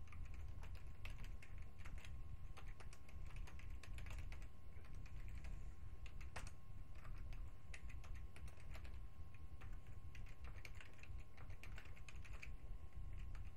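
Typing on a computer keyboard: a run of irregular keystroke clicks, with bursts of quick keystrokes and short pauses, over a steady low hum.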